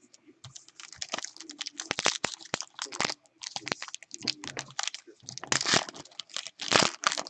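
Foil trading-card pack wrapper being torn open and crinkled in the hands, a dense run of sharp crackles and crinkles.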